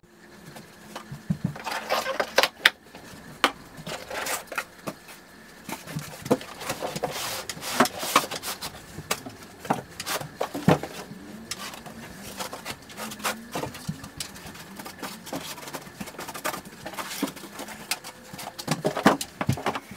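A large cardboard box being unpacked by hand, with foam packing pieces and cardboard scraping, rustling and knocking in irregular clicks and bumps.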